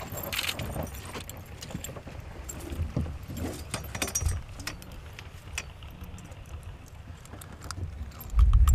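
Small scattered clicks and clinks of handling, with a loud burst of wind on the microphone near the end.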